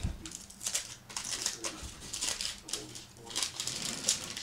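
Wax paper wrapper of a 1986 Topps baseball card pack being torn open and peeled back by hand, crinkling in a quick series of short crackles.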